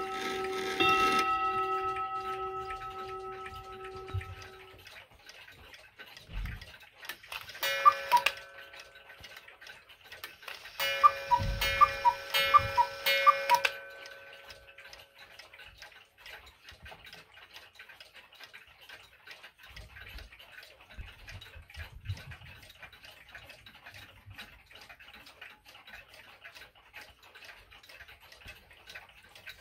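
A mantel clock's hour strike ringing and dying away. Then a cuckoo clock sounds twice, a short run of pitched notes over clicking each time. After that several mechanical clocks tick steadily.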